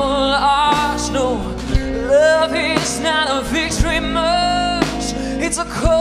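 A woman singing live into a microphone, holding and bending notes over instrumental accompaniment with a bass line.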